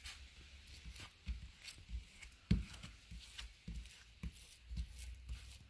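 Plastic cling wrap crinkling and rustling under hands pressed and rubbed across it, smoothing a glue-soaked paper napkin flat onto a wooden tabletop, with soft thumps of the hands on the table, the loudest about halfway through.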